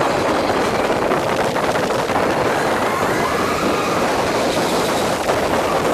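Mine-train roller coaster running along its track, a steady rush of wheel rumble and wind over the microphone, with faint rider voices about halfway through.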